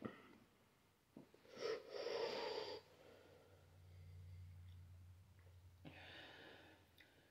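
A person's hard, hissing breaths through a burning mouth after eating a super-hot pepper chip: one about a second and a half in and a fainter one near the end, with a faint low hum in the middle.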